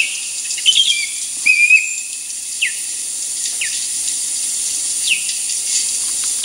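Recorded osprey calls played back: short, high whistled notes that fall in pitch, about one a second, with a longer level note near the start, over a steady hiss.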